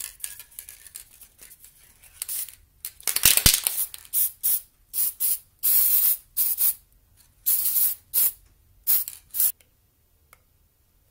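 Aerosol can of CRC silicone mold-release spray giving about a dozen short hissing bursts, coating the molds so the rubber will release when it sets. The spraying stops near the end.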